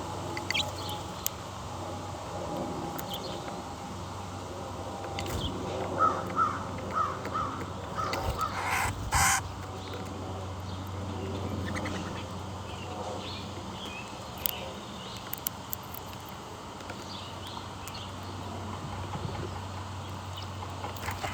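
A crow cawing: a run of short calls about six seconds in, then a louder, harsher caw a couple of seconds later. A steady low hum lies underneath.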